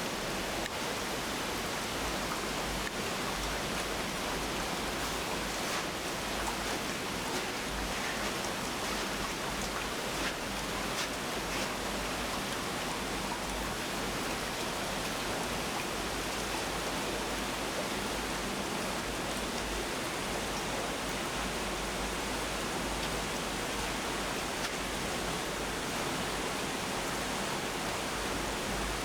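Minnehaha Falls' water rushing down in a steady, unbroken roar.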